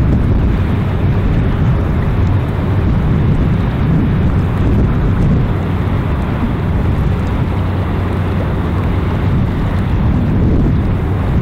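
Low, steady rumble and hum of a large RoRo cargo ship's engines as she passes close by, with wind buffeting the microphone.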